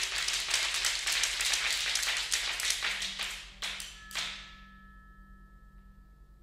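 A dense, fast flurry of sharp taps and clicks in a contemporary music performance, thinning out and dying away about four seconds in. After it, two faint high steady tones and a low hum are held.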